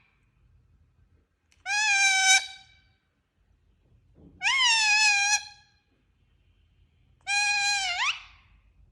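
Parrot giving three drawn-out tonal calls about three seconds apart, each lasting about a second; the last ends in a quick upward sweep in pitch.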